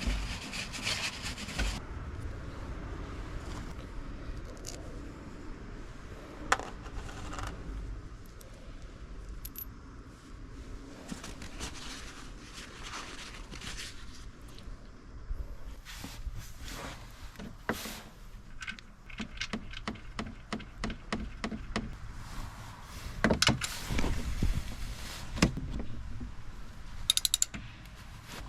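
Metal tools clinking and scraping in hand work during an engine oil change, with a run of quick, regular clicks past the middle and a few louder knocks near the end.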